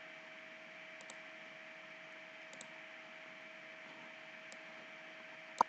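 A few faint computer mouse clicks and a sharper click near the end, over a steady microphone hiss with a faint hum.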